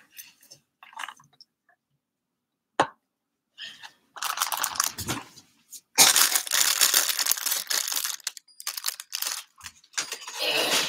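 Product packaging being handled and unwrapped: a sharp click about three seconds in, then repeated bursts of crinkling and tearing from about four seconds on, loudest about six seconds in.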